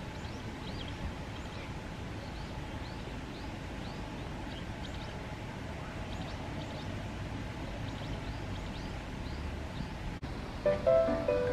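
Small birds chirping again and again in short, high calls over a steady low rumble of background noise. Plucked-string music comes in near the end.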